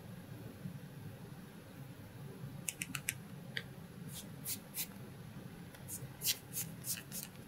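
Hard plastic toy boat being handled and turned over in the hands: a scattering of light, sharp plastic clicks and taps that starts a few seconds in, over a faint steady room hum.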